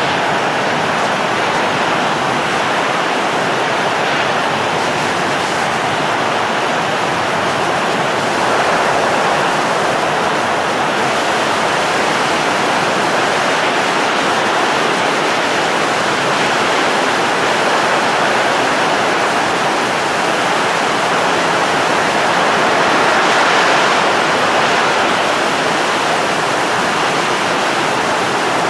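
Steady rushing noise of blowing air, a blowing-wind sound effect, holding an even level with a slight swell about 23 seconds in.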